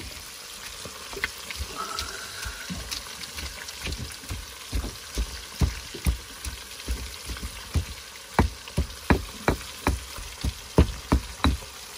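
Fish frying in hot oil with a steady sizzle, over a run of sharp clicks and knocks that come more often in the second half.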